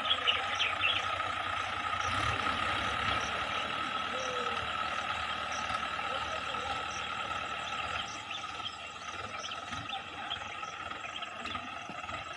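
Swaraj tractor diesel engines running steadily under load, a little quieter after about eight seconds.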